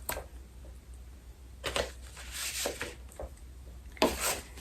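Scattered rustles and light taps of a CD album and its paper inserts being handled, a few short bursts over a few seconds.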